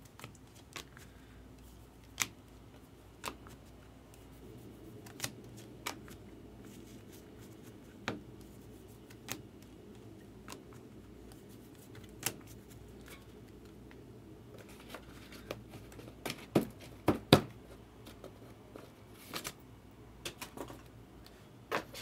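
A stack of 2024 Bowman baseball cards flipped through by hand, one card at a time, each card giving a sharp click about once a second. There are a few louder clacks about three quarters of the way through.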